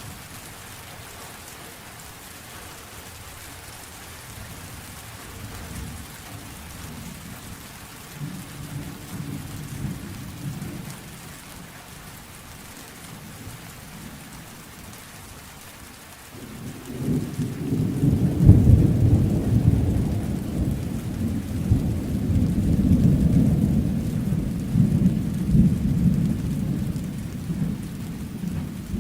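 Thunderstorm: steady rain hissing throughout, with a low roll of thunder about eight seconds in and a much louder, long rumbling thunderclap starting about halfway through that rolls on in swells to the end.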